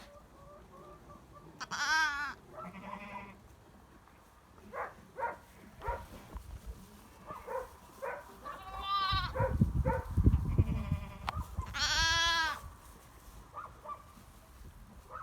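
Goats bleating: three long, quavering bleats at about 2, 9 and 12 seconds in, with shorter calls between them. A low rumble sits under the middle bleat.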